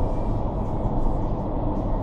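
Steady rush of air from an iFLY vertical wind tunnel running at flying speed, its fans blowing air up through the flight chamber to hold the flyers aloft. The noise is even and unbroken, mostly low in pitch.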